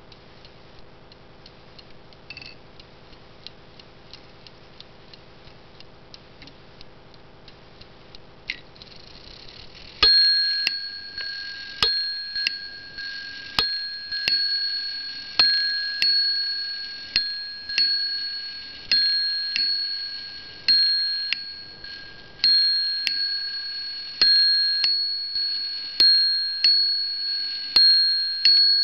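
Franz Hermle portal clock movement ticking rapidly. About ten seconds in, its hammer begins striking the bell on the back of the movement: a long run of strikes about a second apart, each ringing on as a clear bell tone and fading before the next.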